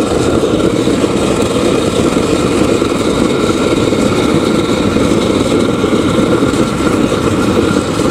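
Homemade oil-fired forge burner running with its air blast: a loud, steady rumbling noise that holds even throughout.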